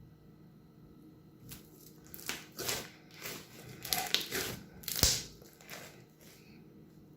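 Crunchy slime being squeezed and pressed, giving a run of irregular crackling crunches that start about a second and a half in, with a sharp snap about five seconds in.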